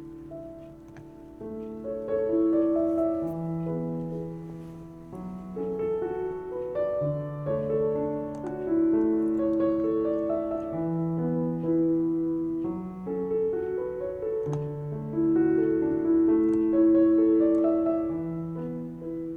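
Piano music playing slow, held chords, fading out near the end.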